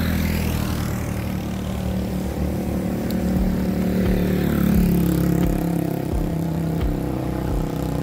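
A motor vehicle's engine running close by, a steady low hum with its pitch shifting a little, loudest around the middle.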